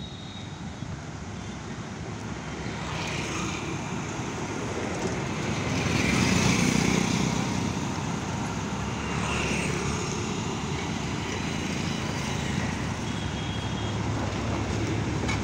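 Diesel engine of an Indian Railways OHE inspection car running as the car moves slowly along the track: a steady low drone that grows louder over the first six seconds or so, then holds. Road traffic on the adjacent road mixes in.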